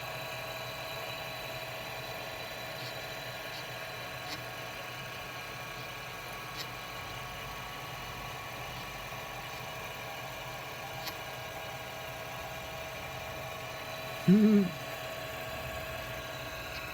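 A Teletype machine's motor running steadily with an even hum, with a few faint ticks. About fourteen seconds in there is a brief, louder sound whose pitch rises and falls.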